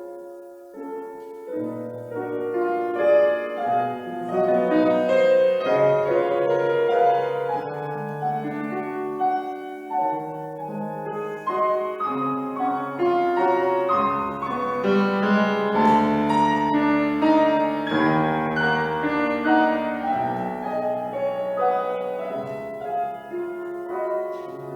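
Solo piano playing a classical accompaniment, with no voice.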